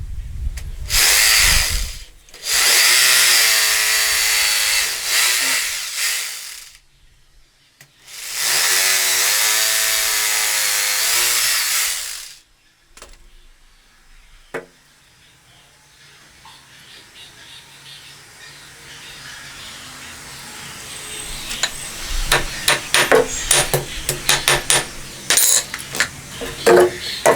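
Handheld power tool run in three long bursts, its pitch sagging and recovering as it works under load. Later, a string of sharp clicks and knocks.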